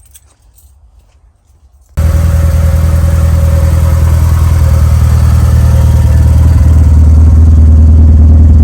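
After about two seconds of near quiet, the 1992 Mitsubishi Eclipse GSX's turbocharged 4G63 four-cylinder engine is suddenly heard running steadily and loudly, growing a little louder toward the end.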